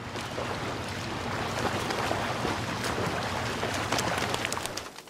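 Sea surf washing against concrete breakwater blocks: a steady rushing with a low rumble beneath it, dropping away near the end.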